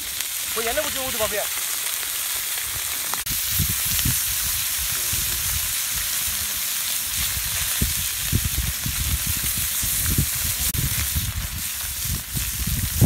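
Marinated fish pieces sizzling in hot oil in a wide iron pan over a wood fire, a steady hiss. From about three seconds in there are irregular low thumps and rumbling underneath.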